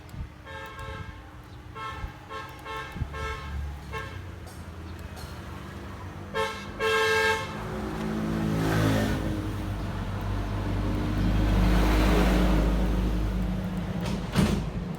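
A vehicle horn honks in a string of short beeps, then a longer double toot. A vehicle then passes, its engine noise swelling and fading with a falling pitch.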